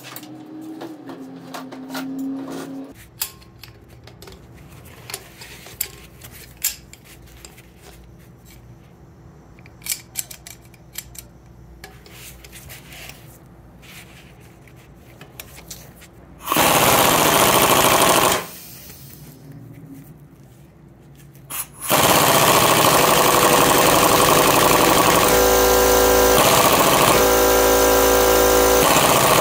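Impact wrench hammering on a puller's centre screw to force a stuck bearing race off a wheel hub. A short burst comes just past halfway, then a long steady run from about three-quarters of the way in, with light clicks of tool handling before it.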